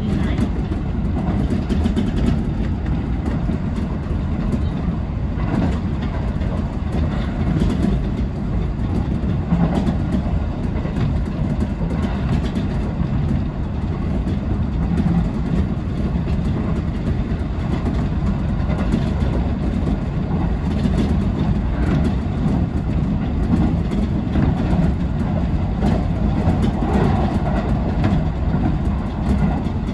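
Kintetsu local electric train running along the line, heard from inside the front car: a steady low rumble of wheels on rail, broken by irregular clicks from the track.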